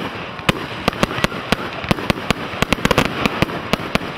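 Professional firework display: a rapid, irregular run of bangs, several a second, from bursting aerial shells over steady crackling.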